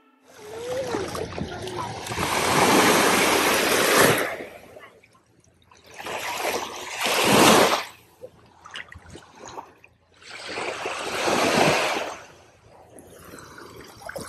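Small waves washing onto a beach: three swells of surf several seconds apart, each rising and then falling away.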